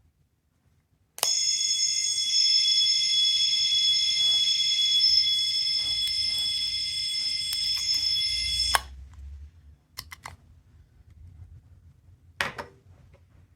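Sound-making capsule toy giving off a steady, high-pitched alarm-like ringing with several pitches at once, starting abruptly about a second in and cutting off after about seven and a half seconds. A few light clicks of handling follow.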